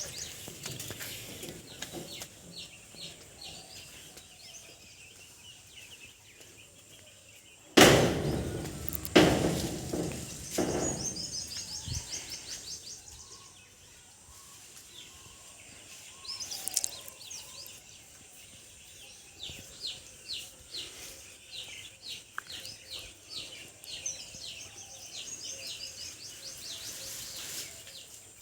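Birds chirping in quick repeated series of short, high notes. A loud burst of noise comes about eight seconds in, followed by two more.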